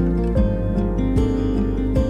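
Background music: gentle plucked-string melody over sustained bass notes.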